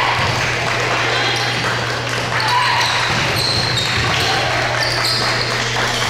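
Indoor volleyball rally: the ball being struck, a few sneaker squeaks on the hardwood court, and spectators' voices echoing in the gym, over a steady low hum.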